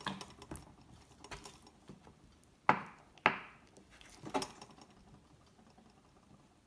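Kitchen knife knocking against a wooden cutting board while trimming fat from a raw chicken leg: about half a dozen short knocks, the two loudest close together about three seconds in.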